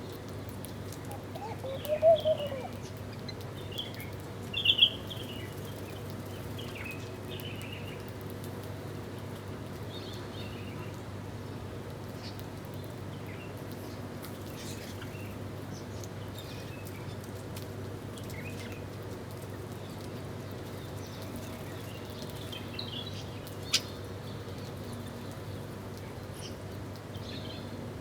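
Birds chirping and calling on and off, with a low arched call about two seconds in and a louder chirp a few seconds later. A sharp click comes near the end, over a steady low hum.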